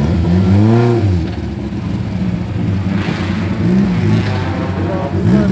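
Off-road vehicle engine running under load, its pitch rising and falling back as it is revved, once about a second in and again around the middle.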